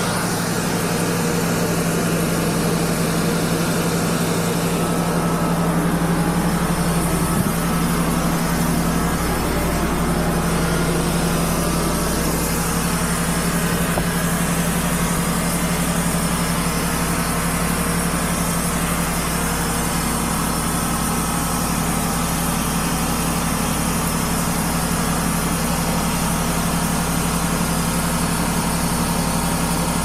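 Wood-Mizer LT35 bandsaw sawmill running steadily, its band blade resawing a 14-inch-wide kiln-dried red oak board as the board feeds through. The blade is very dull.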